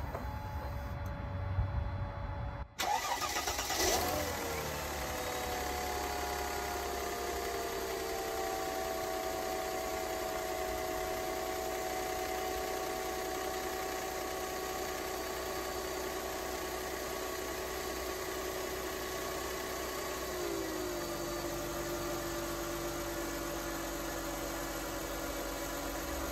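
A 1998 Mercedes-Benz CLK 320's 3.2-litre V6 starting about three seconds in with a short burst, then idling steadily, its idle speed stepping down a little about twenty seconds in. It sounds like a tractor, and the owner suspects an exhaust leak somewhere underneath.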